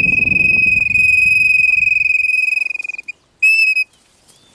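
Hand-held flute-type bird-call whistle (pio) blown to imitate the call of the codorna piriri. It gives one long, slightly wavering high note, then a short second note about three and a half seconds in.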